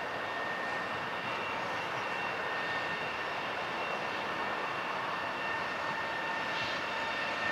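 EP20 electric locomotive running steadily with a high whine over a broad hiss.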